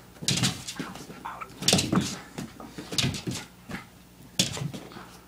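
A dog leaping at a laser pointer dot, with several sudden thuds and scuffles as it jumps against the wall and lands on the floor.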